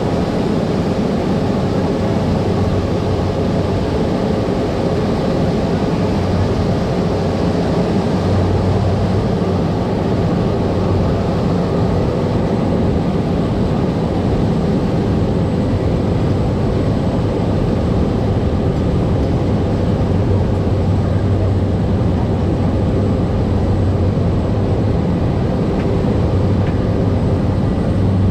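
Cessna 208B Caravan's PT6A turboprop engine and propeller running in flight: a steady drone with a strong low hum.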